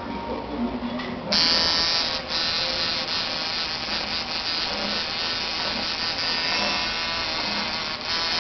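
Tattoo machine buzzing steadily, switched on about a second in, with a brief break shortly after.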